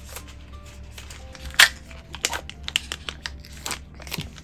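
Plastic wrapping of individually packed feta cheese portions crinkling as it is handled: a string of sharp crackles, the loudest about one and a half seconds in. Soft background music plays under it.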